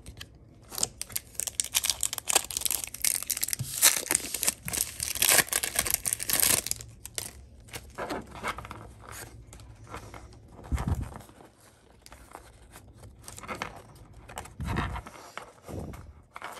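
Foil trading-card booster pack wrapper crinkling and being torn open for several seconds. After that come softer rustles and clicks of cards being handled, with a couple of dull thumps.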